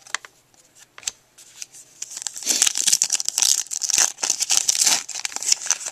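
Foil wrapper of a trading card pack being crinkled and torn open: a few light clicks at first, then dense crinkling from about two seconds in.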